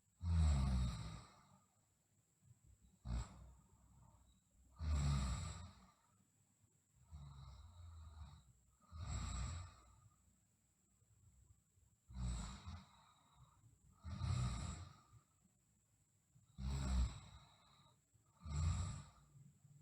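A sleeping girl snoring: slow, heavy breaths about every two seconds, the louder ones with a low rattling buzz.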